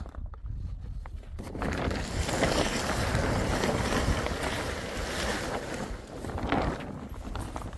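Gusty wind blowing on the microphone with a low rumble, and a large plastic tarp rustling in it. The gust builds about a second and a half in and eases off near the end.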